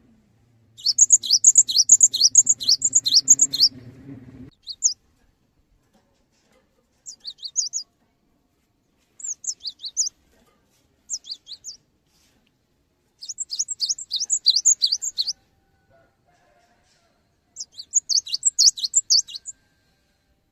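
Cinereous tit (gelatik batu) singing: bursts of quick, high, repeated notes, first a long run of about three seconds and then several shorter phrases with pauses between them. A low hum underneath stops suddenly about four seconds in.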